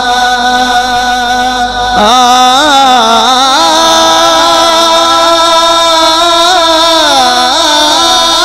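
Male voice singing a naat into a microphone: one long held note for about the first two seconds, then a winding, ornamented line of sliding pitches.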